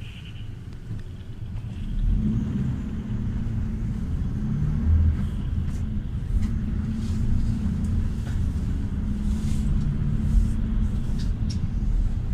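Engine and road rumble of a GAZ A64R45 minibus with an Evotech engine, heard from inside the cabin. The rumble gets louder about two seconds in as the minibus pulls away from a stop, then holds steady while it drives on.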